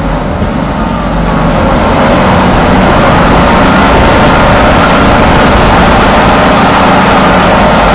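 Engine and running noise of the airsoft tank, a vehicle driving over rough ground: loud and steady, swelling a little about two seconds in.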